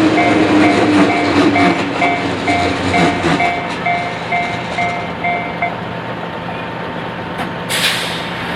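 Japanese railway level-crossing warning bell ringing in a steady two-tone pulse about twice a second, under the rumble and clatter of a JR Yumesaki Line train running through. The train fades out, and the bell stops a couple of seconds later as the crossing clears. A short hiss follows near the end.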